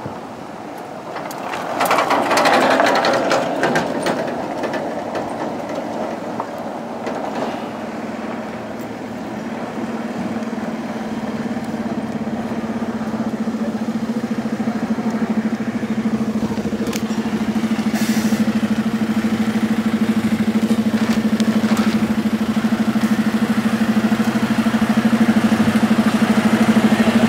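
Engine of a road tourist train idling, a steady hum that grows louder from about ten seconds in. A loud rush of noise about two seconds in.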